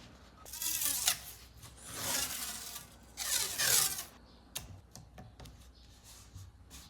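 Three scraping strokes of a hand tool across wood, each lasting under a second, followed by a few light clicks and taps.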